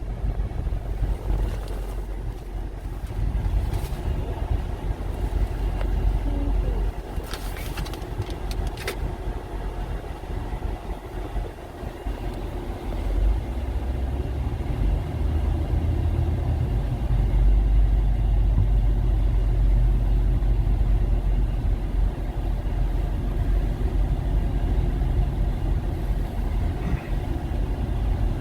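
Steady low rumble of road vehicles, with a few sharp clicks about seven to nine seconds in.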